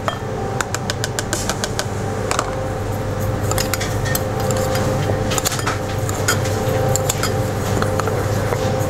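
Metal spoon clicking and scraping against a porcelain bowl as dry seeds and nuts are stirred: a run of irregular light clinks. Under it runs a steady kitchen ventilation hum.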